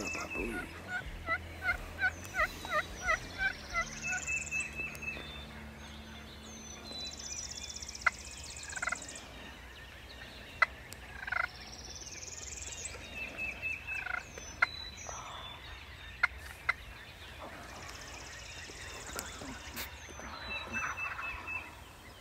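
A turkey yelping: a run of about nine evenly spaced yelps in the first four seconds, with songbirds calling and trilling around it and a few sharp clicks later on.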